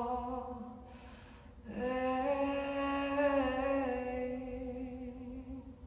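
A woman singing unaccompanied. She holds the end of a sung line, which fades out about a second in. She takes a quick breath, then sings a long, steady wordless note that fades near the end.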